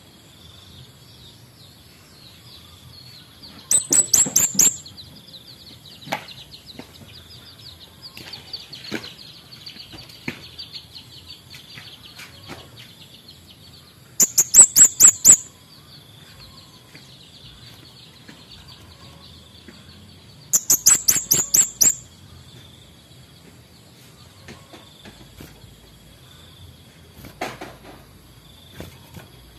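Male kemade bunga api songbird calling in three loud, very high, rapid twittering bursts of about a second each, near the start, the middle and about two-thirds through. A thin, steady high trill runs underneath.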